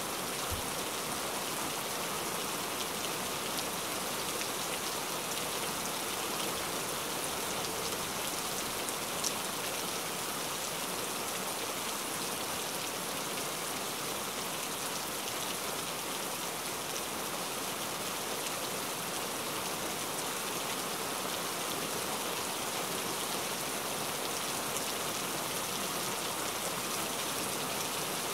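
Steady, even hiss like rain falling, with no distinct events.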